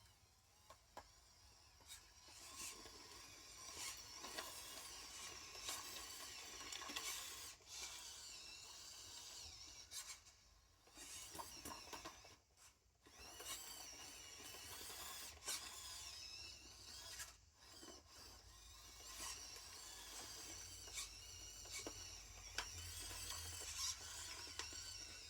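Faint whine of a small electric motor, its pitch wavering up and down as the speed changes, with a few brief pauses and clicks.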